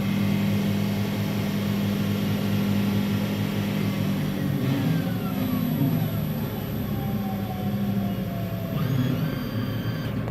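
Emco PC Turn 125 benchtop CNC lathe running: a steady machine hum that shifts in pitch several times as it works, with a whine falling in pitch about halfway through and new higher tones starting near the end.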